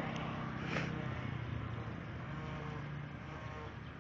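Steady engine hum of a motor vehicle, fading slowly.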